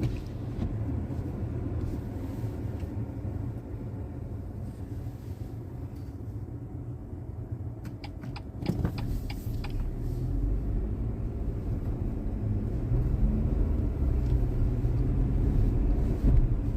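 Steady low rumble of a motor vehicle running, with a few light clicks about eight to nine seconds in; the rumble grows a little louder toward the end.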